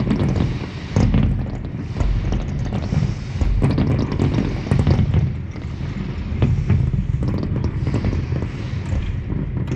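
Fireworks display going off in a rapid run of low booms with sharp crackles between them, heard muffled from indoors.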